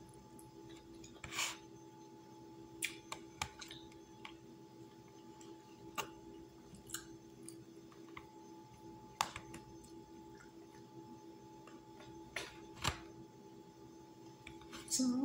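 A fork clicking and tapping against a plastic food container, about ten scattered sharp clicks, over a steady low electrical hum.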